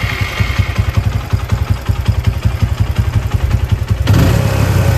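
TVS Apache RTR 180's single-cylinder four-stroke engine running just after being started, a rapid train of exhaust pulses that gets louder about four seconds in. Its idle does not hold a steady rhythm and tends to over-rev, which the owner puts down to a worn, sticking carburettor slide and a possible valve or intake leak.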